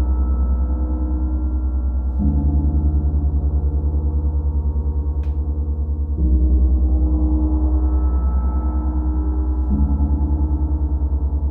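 Deep gong tones ringing on, with a fast wavering pulse in the low hum. A fresh stroke about two seconds in, another about six seconds in and another near ten seconds in each bring in a new set of tones. A single small click about five seconds in.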